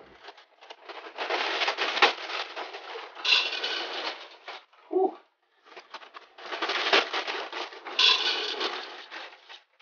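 Small, dry Tiny Toast cereal pieces pouring out of the box into a glass vase, a rattling rush of pieces. It happens twice: one box about a second in, the second box from about six seconds, with a short pause between the pours.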